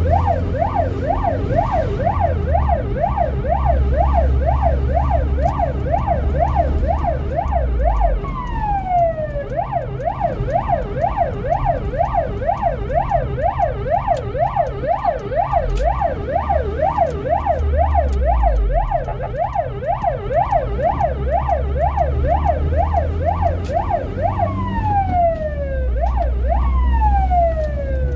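Ambulance siren in a rapid yelp, rising and falling about three times a second, heard from inside the vehicle over the engine's low rumble. The yelp breaks into a single falling sweep about eight seconds in, and twice more near the end.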